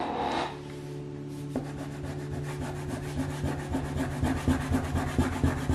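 Wax crayon rubbing on paper: a red jumbo crayon is scribbled rapidly back and forth to colour in a shape. The strokes grow denser and louder in the second half.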